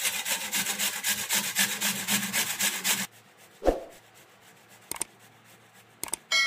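Peeled raw potato rubbed fast on a stainless steel box grater, about five rasping strokes a second. About three seconds in it goes much quieter, with a single knock.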